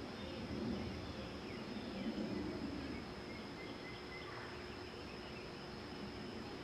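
Outdoor ambience: a steady high insect drone, like crickets, with a couple of soft low rustling swells about half a second and two seconds in.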